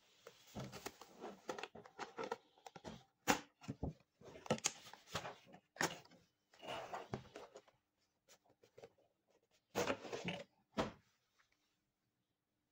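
Hands handling clear rigid plastic packaging: the box sliding out of its sleeve and being opened, giving irregular rustling with sharp plastic clicks and taps.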